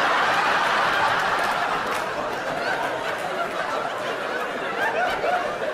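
Large theatre audience laughing at a punchline: a long wave of many voices laughing together that slowly dies down.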